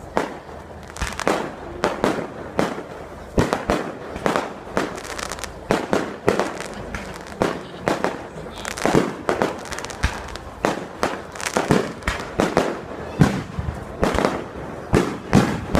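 Fireworks going off: an irregular run of sharp bangs from bursting shells, coming several a second at times, each followed by a short echoing tail.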